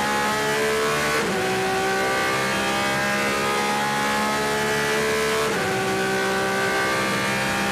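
Porsche 911 RSR's naturally aspirated flat-six racing engine pulling hard at full throttle, heard onboard, its pitch climbing slowly through high gears. It drops sharply at two quick gear upshifts, one about a second in and one later.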